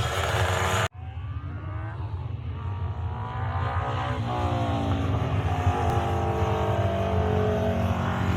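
Classic hillclimb racing engine at full throttle. After an abrupt break about a second in, it pulls up through the gears: the pitch climbs, drops twice at upshifts, then rises again.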